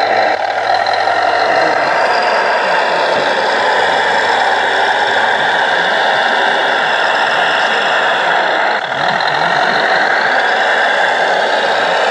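Scale RC Volvo L250 G wheel loader running: its sound module plays a steady diesel engine sound, with faint rising and falling whines, as the loader drives and fills its bucket with dirt. The sound dips briefly near the middle.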